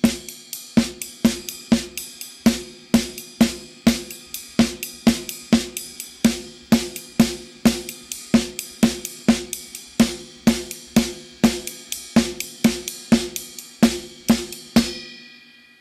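Drum kit playing a samba coordination exercise: a straight ride-cymbal pattern with a two-measure left-hand pattern of downbeats and upbeats against it. It is a fast, even run of strokes that stops near the end, the last cymbal hit ringing out.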